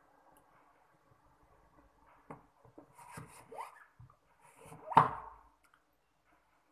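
Eating sounds: wet mouth clicks and smacks from eating ice cream, then a metal spoon scraping a scoop of ice cream out of the tub, the loudest sound about five seconds in.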